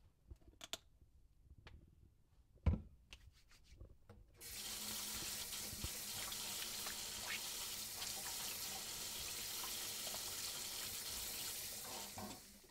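A few faint clicks and one sharp knock about two and a half seconds in. Then a kitchen faucet is turned on and water runs steadily into a stainless steel sink over hands rinsing dishes, stopping just before the end.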